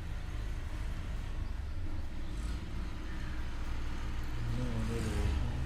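Steady low background rumble, with a short wavering pitched sound near the end.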